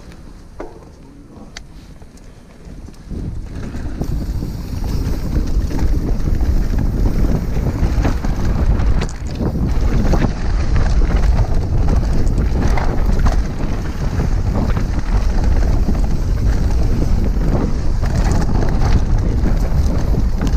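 Wind buffeting a helmet-mounted GoPro and knobby tyres rolling over a dirt trail as a downhill mountain bike descends, with a stream of small knocks and rattles from the bike over rough ground. The noise grows louder about three seconds in as the bike picks up speed.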